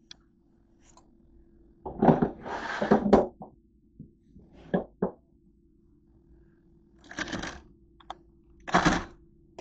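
A hard plastic cooler being handled and opened: several short scraping, knocking bursts with two sharp clicks from the lid, the loudest bursts early on and another near the end.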